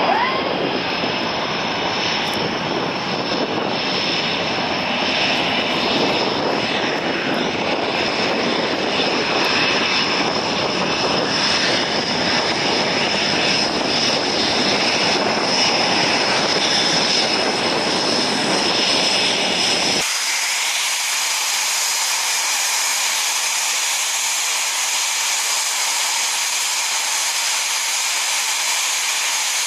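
Panavia Tornado's twin RB199 turbofan engines running at taxi power: a steady jet rush with a high whine. About two-thirds of the way through, the sound changes abruptly to a thinner, hissing whine with the low rumble gone.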